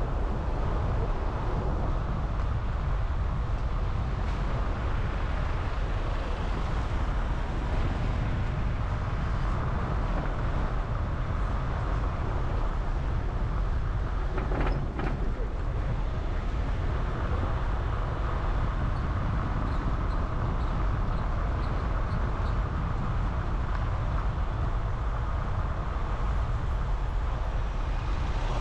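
A car being driven: steady engine and road rumble with wind noise, unbroken throughout, with a brief faint knock about halfway through.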